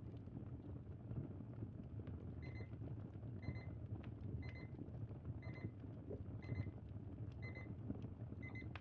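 Digital timer beeping about once a second from about two and a half seconds in, each beep a quick run of high pulses, signalling that the 50-minute study session is up. Underneath is a steady low crackling campfire sound.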